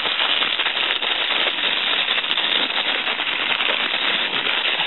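Thin clear plastic bag being handled and crinkled as a USB data cable is worked out of it: a loud, dense, continuous crackle.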